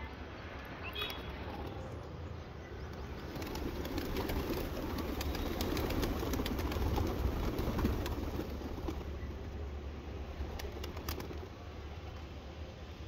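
A flock of domestic pigeons flapping their wings as they come down together onto grain, with some cooing. The wingbeats swell to a dense flutter in the middle and then settle.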